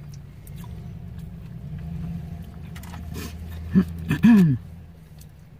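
Low, steady vehicle engine rumble that swells a little midway. About four seconds in there are a couple of clicks and a brief low murmur from a person.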